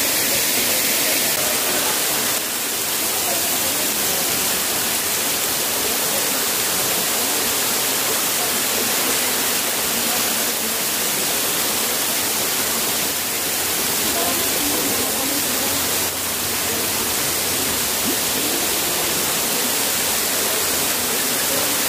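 Waterfall rushing: a steady, loud wash of falling water.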